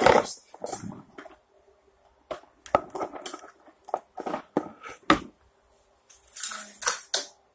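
Irregular knocks, scrapes and crunches of a kitchen masher working soft glue sticks against the sides of a mixing bowl, with a longer rustling clatter near the end.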